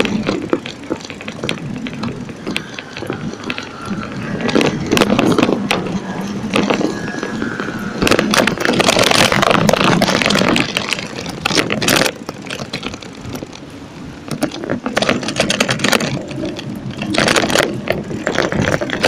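Bicycle clattering and rattling as it rides over brick paving, with city traffic around. The rattle is loudest in stretches about halfway through and near the end.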